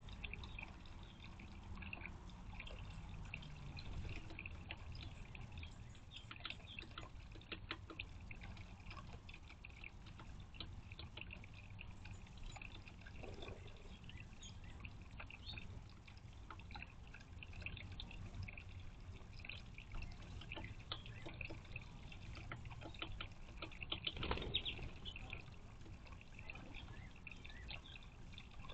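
Thin stream of water from a garden birdbath fountain's spout trickling and splashing into the stone basin, with irregular drips. It is briefly louder about 24 seconds in.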